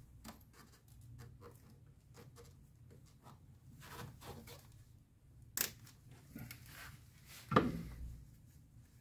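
Screwdriver working a hose clamp loose on the LPG feed hose at the gas injector rail: a run of small clicks and ticks of metal and plastic, then a sharp click a little past halfway and a louder knock about two seconds later.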